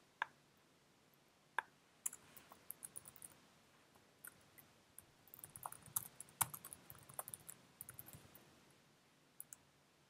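Faint typing on a computer keyboard: short runs of keystrokes with a few single clicks between them.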